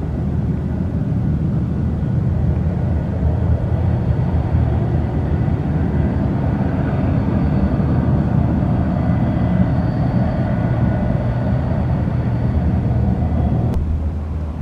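Boeing 737-200's Pratt & Whitney JT8D turbofan engines running at taxi power: a steady low rumble with a faint high whine over it, growing a little louder through the middle as the jet turns.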